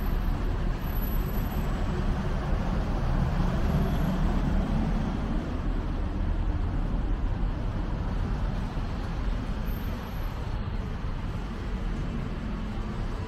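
Steady road traffic noise, swelling briefly about four seconds in.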